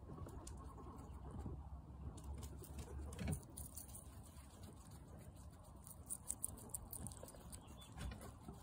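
Guinea pig biting into and chewing a red grape: faint, wet crunching clicks from its mouth, with a sharper bite about three seconds in and a few more just after six seconds.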